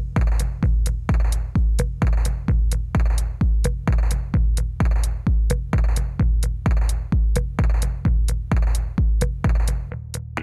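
Background electronic dance music with a steady drum-machine kick beat of about two hits a second and sharp hi-hat ticks; the beat drops out near the end.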